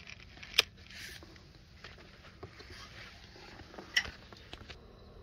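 Two sharp plastic clicks about three seconds apart, with a few small handling knocks after the second, from a portable battery charger being handled: its power plug and switch are being worked to charge the wheel loader's flat battery.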